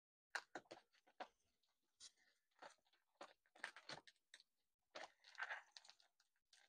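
A 1-inch ETQ tourniquet's strap and buckle being cinched tight by hand, heard as a string of short, irregular scrapes and clicks. Each pull raises the pressure under the band.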